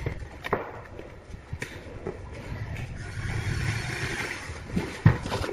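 A few sharp knocks and clatter from an aluminium shower-cabin frame and glass panels being handled, the loudest near the end, over a steady low rumble.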